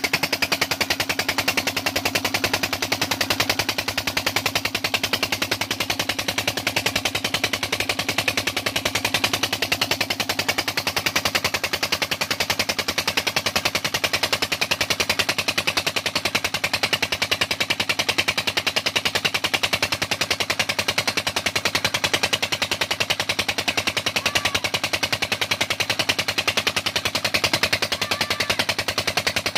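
Single-cylinder stationary diesel engine with a heavy flywheel running steadily, its exhaust a rapid, even chugging that never changes pace. It is belt-driving a tubewell water pump.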